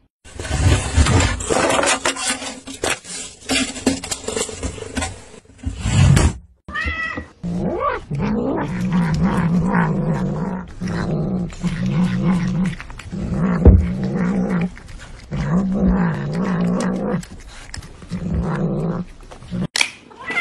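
Domestic cat making a run of low, wavering growl-meows, each about a second long with short breaks between, after a single rising meow about seven seconds in. The first six seconds hold loud scratchy noise.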